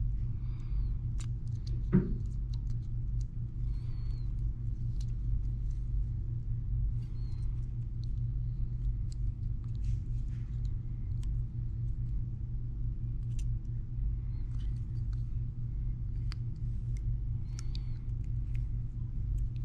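Steady low electrical hum throughout, with faint, scattered small clicks of tweezers on the watch's tiny flex connectors and one sharper click about two seconds in.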